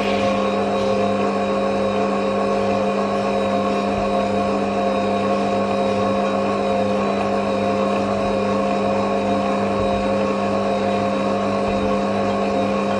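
Stand mixer motor running steadily at slow speed, its dough hook kneading flour and liquid into bread dough: a steady motor hum with a slightly wavering whine above it.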